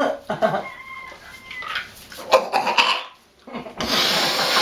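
Domestic poultry calling: one drawn-out call held on a steady pitch about a second in, then a shorter, louder call. A loud hiss of noise follows near the end.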